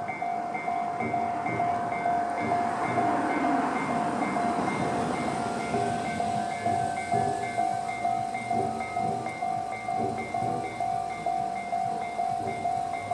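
Electronic railway level-crossing warning bell (Tobu's "type C" crossing sound) ringing in a steady repeating pattern. A Tobu Isesaki Line electric train passes over the crossing, and its noise swells and fades in the first half.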